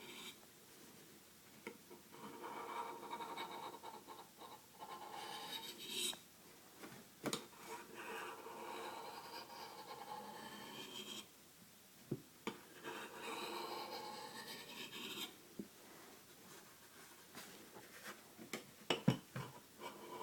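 Steel knife blade, the chisel-ground edge of an Emerson Micro Commander, drawn freehand across a Sharpmaker stone in a series of scraping strokes of a second or more each. A few sharp clicks fall about halfway through and near the end.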